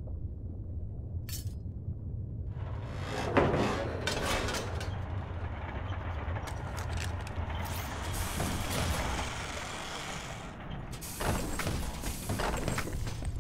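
Mechanical sound effects for a tracked, excavator-like robot: a steady low rumble, a sudden crash about three seconds in, then a long stretch of hissing machine noise, with another clattering burst near the end.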